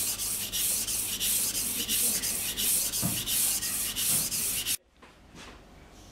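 Steel knife blade stroked back and forth on a wet Japanese water stone, the angle held steady by a clip-on guide rail: an even rasping scrape at about three strokes a second that stops abruptly after nearly five seconds.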